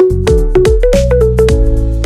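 Background music: an upbeat tune with a bright mallet-like melody over a steady bass and beat.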